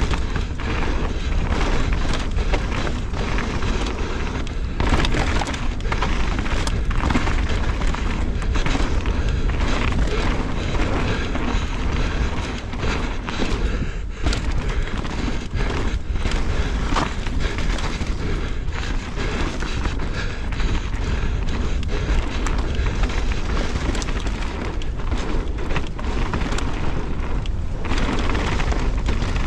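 Mountain bike ridden fast down a dirt and gravel trail. Wind rumbles steadily on the camera's microphone, and the tyres rolling over stones and the bike rattling over bumps add frequent clicks and knocks.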